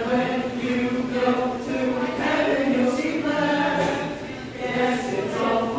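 A group of voices singing a song, with long held notes.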